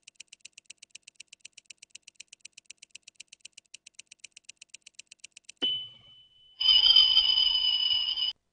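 Kitchen timer ticking steadily at about five ticks a second. About five and a half seconds in it dings, then its bell rings for about two seconds as the timer goes off.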